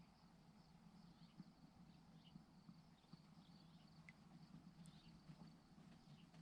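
Near silence: a faint low hum with a few faint small ticks.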